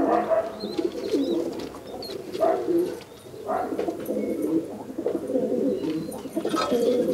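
Domestic pigeons cooing, several calls overlapping in a continuous warbling chorus that swells and fades.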